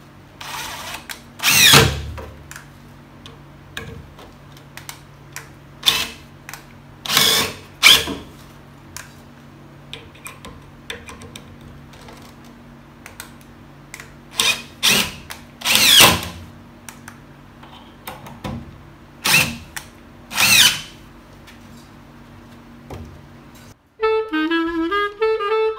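Cordless drill driving screws through a plywood shelf's back rail into wall plugs, in about eight short runs, each motor whine rising and falling. About two seconds before the end, swing jazz with saxophone comes in.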